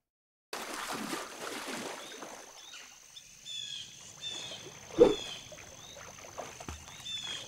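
Lakeside ambience: birds calling in short, falling chirps over a soft wash of water from a swimmer in the lake. One short, loud sound breaks in about five seconds in.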